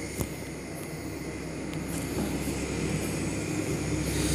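A cleaver strikes the cutting board once, sharply, just after the start, with a couple of faint knocks later, over a steady low rumble of machinery that grows louder near the end.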